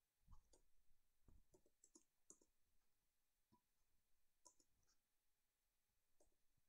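Near silence with a dozen or so faint, irregularly spaced clicks of a computer mouse and keyboard.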